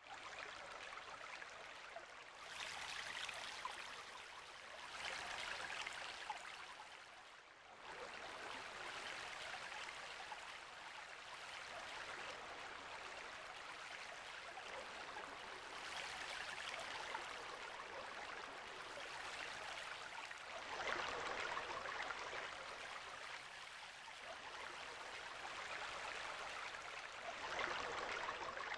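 Flowing water of a shallow gravel-bed brook heard underwater, a steady hiss that swells louder every few seconds.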